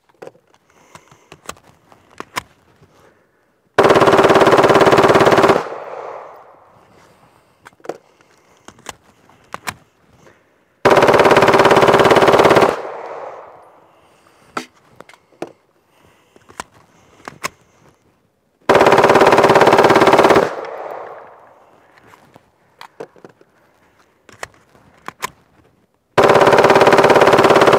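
Full-auto Glock 17 pistol, fitted with an auto sear, firing four long bursts of rapid 9mm shots, each just under two seconds long, with the sound dying away over about a second after each. Small clicks and knocks come between the bursts, and the last burst starts near the end.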